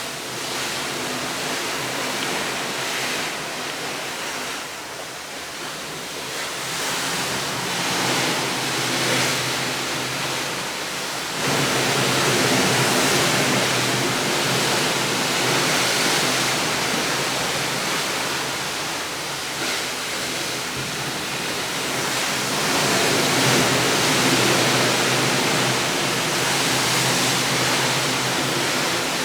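Steady rushing noise that swells and fades slowly, stepping abruptly louder about eleven seconds in.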